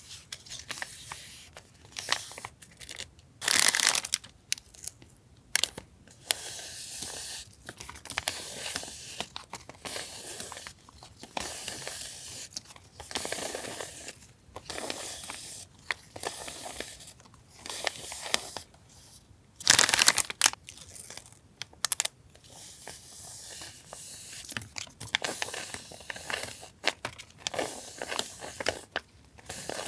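Paper and packaging being handled: crinkling and rustling in short bursts, with two louder tearing sounds, one a few seconds in and one near the middle.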